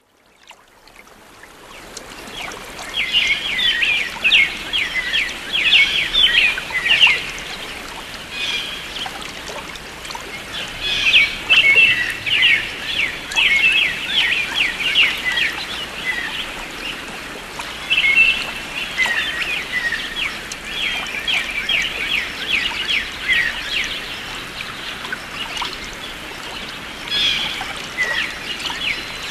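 Small songbird singing in repeated phrases of rapid high chirps, each phrase a few seconds long, over a steady trickle of running water. The sound fades in at the start.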